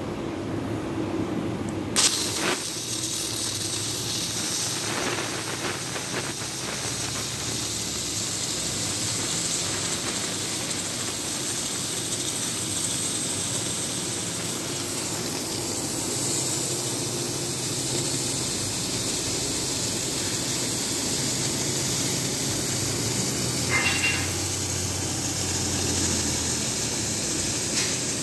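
CNC oxy-fuel cutting torch hissing steadily as its oxygen jet cuts through thick steel plate, over a low machine hum. The hiss comes on abruptly about two seconds in, and a short higher-pitched sound cuts through near the end.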